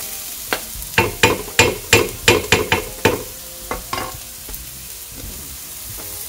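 A wooden spoon stirs vegetables in a non-stick frying pan. It clacks and scrapes against the pan in a quick run of about ten strokes over the first three seconds, then a few more, while the vegetables sizzle steadily.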